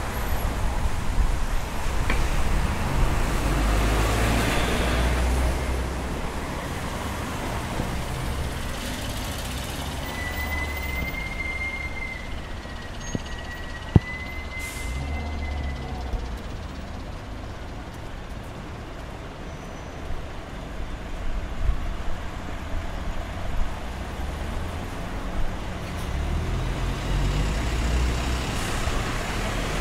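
Road traffic on a busy city street: cars, buses and trolleybuses passing, heaviest near the start and again near the end. A thin high whistle holds for several seconds in the middle, and a single sharp click sounds about halfway through.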